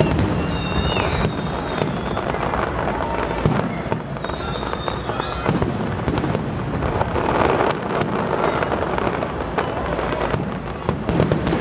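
Aerial fireworks display at its height: a dense, continuous barrage of shell bursts, with many sharp cracks over deep booms. A few short high whistles sound near the start and again about five seconds in.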